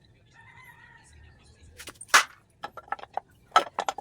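Sharp metallic clinks and knocks of metal parts being handled, the loudest about two seconds in, after a faint drawn-out call in the first second.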